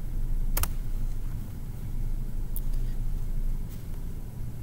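Steady low rumble of background noise on the microphone, with one sharp click about half a second in and two fainter clicks later, like a computer mouse being clicked.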